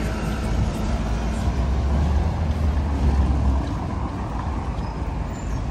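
Busy city-street traffic: a city bus and cars running close by, with a steady deep rumble that eases about three and a half seconds in.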